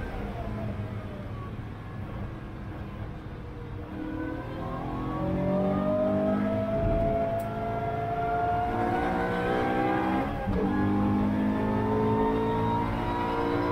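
Track car's engine heard from inside the cabin, revs falling for a few seconds, then climbing steadily under hard acceleration. A brief dip about ten seconds in, after which the revs climb again, fits a gear change.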